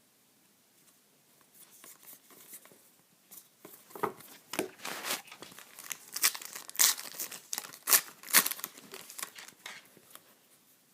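Foil wrapper of a trading card pack being torn open and crinkled: a run of irregular crackling tears, starting quietly, loudest in the middle and dying away near the end.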